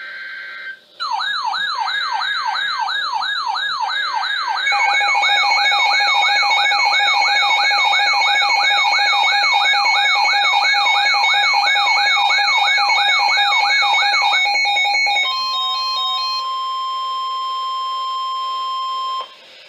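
Emergency Alert System tornado-warning tones on NOAA Weather Radio. A brief screech of digital data-burst header tones comes first. Then a fast electronic wail rises and falls nearly three times a second, and a steady alert tone joins it about five seconds in. Near the end the wail stops, and a single steady warning alarm tone holds for about four seconds before cutting off.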